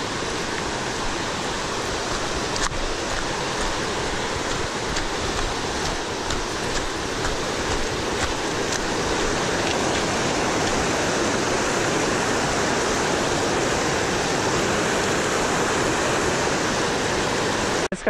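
Rushing mountain creek: whitewater pouring over rocks, a steady loud rush of water that grows a little louder partway through.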